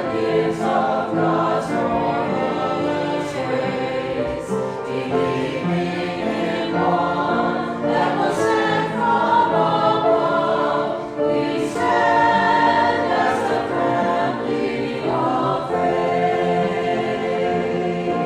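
A choir singing church music in sustained chords.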